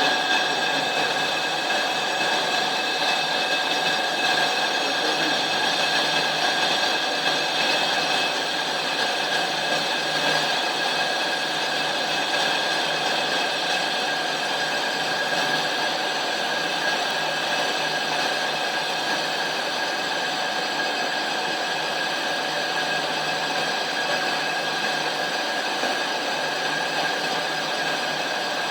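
Lathe running steadily while turning a truck brake disc, with a few steady tones ringing over the cutting noise. Machining the disc face removes the grooves and ridges that keep the brake pads from seating properly.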